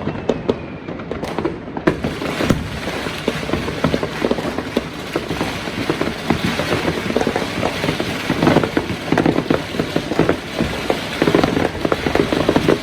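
Fireworks and firecrackers going off in a dense, unbroken crackle of pops and bangs, growing thicker in clusters past the middle and near the end.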